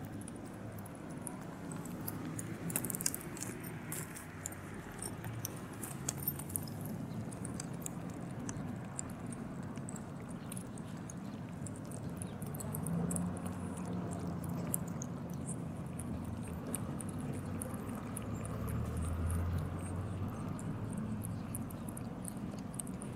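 Cats lapping milk from a plastic pet bowl: a fast run of small wet tongue clicks and slurps, with several cats drinking at once, over a low steady background rumble.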